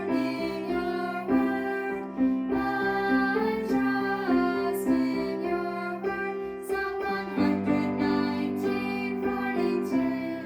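Instrumental music with gently plucked or struck notes, a bright melody over held lower notes, fading out just after the end.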